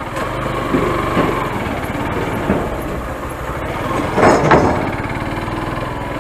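Small motorbike engine running steadily at road speed, heard from the rider's position, with a brief louder swell about four seconds in.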